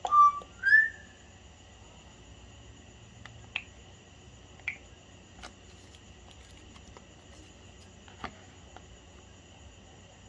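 The last two notes of an LG Classic Flip ringtone through the phone's small speaker, the second note gliding upward, ending about a second in. After that comes a faint steady hiss with a thin high whine and a few soft clicks.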